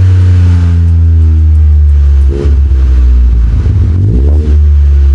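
BMW 118i F40's turbocharged three-cylinder engine revved while parked through a newly fitted sport exhaust with M Performance tips: the revs fall away, then it is blipped briefly about two seconds in and again near four seconds, each time dropping back.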